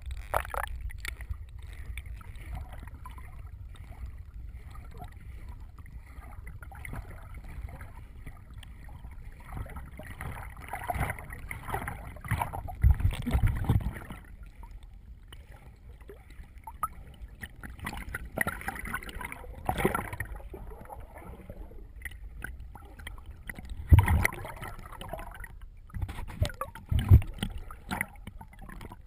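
Muffled water sloshing and swishing around a camera held underwater, over a steady low rumble, with a few dull thumps.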